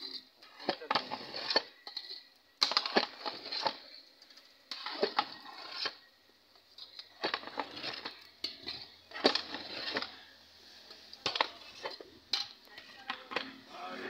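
Metal spoon scraping and clinking against a steel bowl and a large metal cooking pot as cooked meat is scooped into a pot of yellow biryani, in irregular clusters of short scrapes and clinks.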